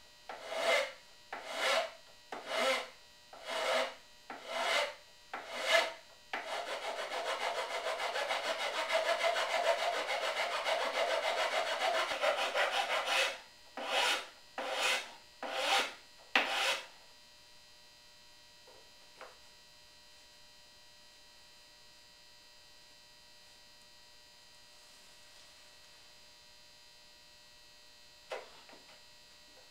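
Hand rasp filing wood in short back-and-forth strokes, about one and a half a second, then several seconds of fast continuous rasping, then four more strokes; the rasping stops about 17 seconds in.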